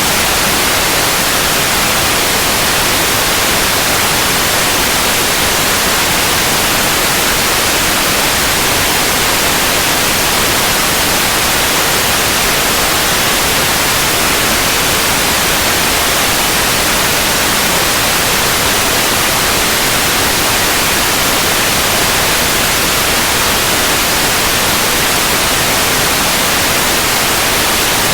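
Steady, loud white noise: an even hiss with no change or events, stronger in the high end.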